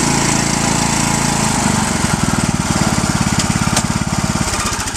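John Deere riding lawnmower engine running hard, then easing off about a second and a half in so that its separate firing pulses can be heard.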